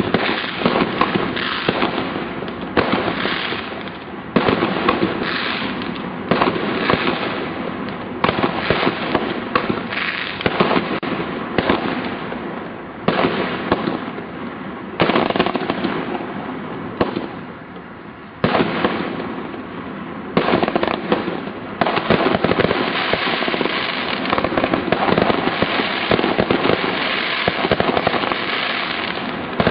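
Consumer fireworks going off in continuous volleys of bangs and crackling, with a fresh loud barrage starting every few seconds. The volleys thin out briefly about two-thirds of the way through, then start again and stay dense near the end.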